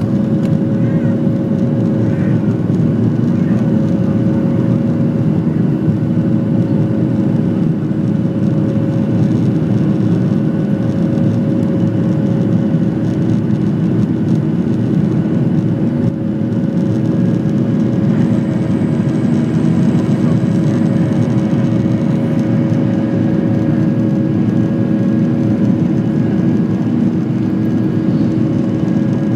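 Cabin noise of a Boeing 737 climbing out after takeoff, heard inside the cabin: the steady roar of the jet engines and rushing air, with a few steady engine tones running through it.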